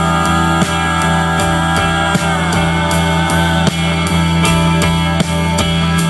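Live rock band playing: electric guitars, keyboard and drum kit over a steady beat, with one note gliding down about two seconds in.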